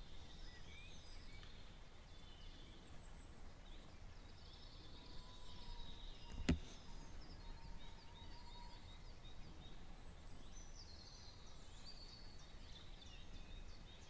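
Faint birdsong from several birds, short high chirps and trills throughout over a low outdoor rumble, with one sharp click about six and a half seconds in.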